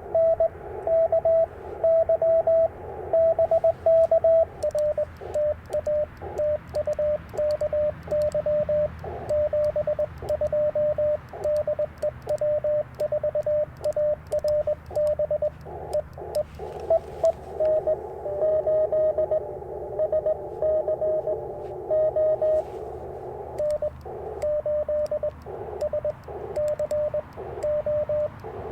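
Morse code (CW) from an Icom IC-705 transceiver: a steady stream of dits and dahs as one mid-pitched beep keyed on and off, over the receiver's hiss. The beep sits slightly higher for the first few seconds, then a little lower, and the hiss swells for several seconds past the middle.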